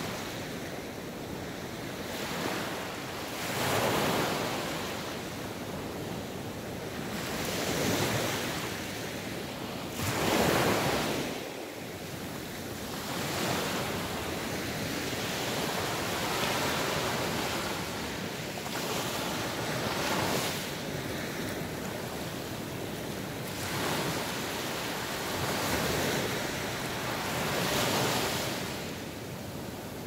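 Ocean surf: waves breaking and washing back, a swell of rushing noise every three to four seconds, the biggest about ten seconds in.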